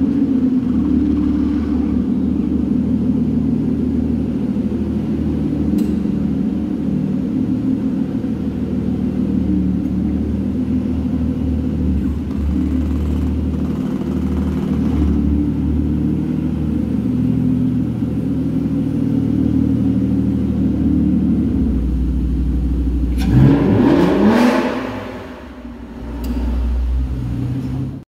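Aston Martin Zagato's 6.0-litre V12 running at a steady idle, then revved once sharply about 23 seconds in, its pitch sweeping up and falling back before it settles to idle again.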